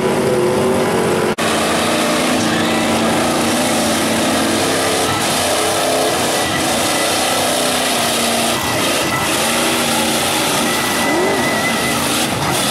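Big-block Chevy V8 of a mega mud truck running hard and revving as the truck churns through a mud pit. The engine sound drops out for an instant about a second and a half in.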